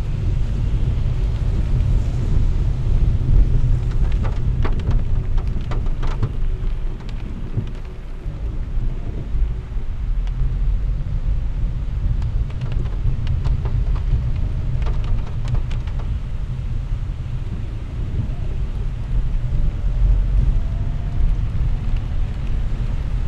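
Steady deep rumble of a car driving on a rain-soaked road, heard from inside the cabin, with rain on the windshield. A few sharp ticks about four to six seconds in and again around thirteen to fifteen seconds.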